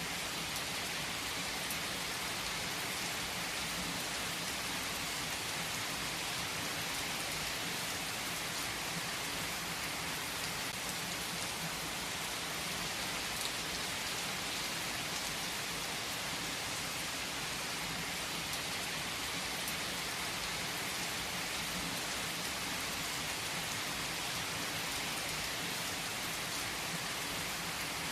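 Steady rain falling, an even hiss with no let-up, with a few faint ticks here and there.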